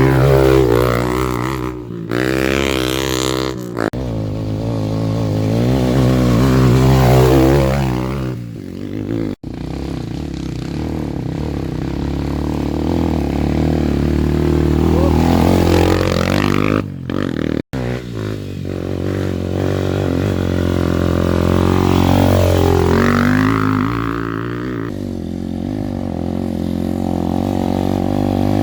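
Dirt-bike engines running on a trail, revving so their pitch rises and falls several times, broken by a few abrupt cuts.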